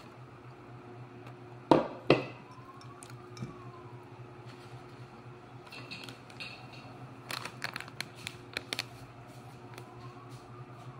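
Kitchen handling as drained raw chicken wings are added to a bowl: two sharp knocks of dishware about two seconds in, then a quick run of light clicks and taps a little past the middle, over a steady low hum.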